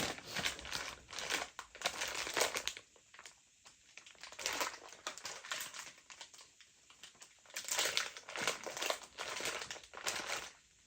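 Snack and chocolate wrappers crinkling and rustling as packets are handled and lifted out of a box, in irregular bursts with short quieter gaps.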